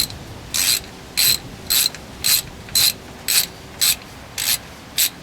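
Hand ratchet turning the rear differential cover bolts on a GM K1500 pickup, clicking in short strokes about twice a second, about ten strokes in all. The bolts are being brought up evenly in a criss-cross pattern so that the gasket stays square and seals.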